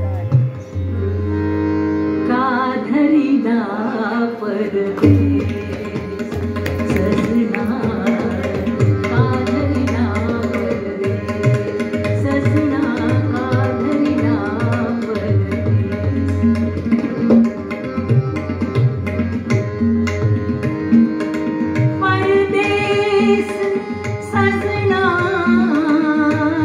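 A woman singing a Marathi stage song (natya sangeet) live, with ornamented runs near the start and again near the end, over held accompanying tones. Tabla keeps a steady beat from about five seconds in.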